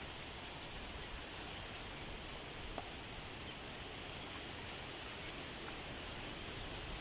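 Steady hiss of rushing water from a waterfall or stream, with a faint click about three seconds in.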